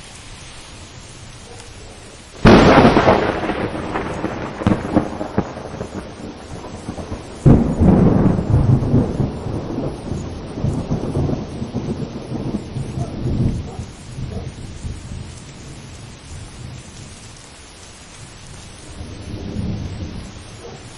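Thunder over steady rain. A sharp crackling clap comes a couple of seconds in and rolls away. A second loud clap about a third of the way through rumbles off over several seconds, and a faint distant rumble follows near the end.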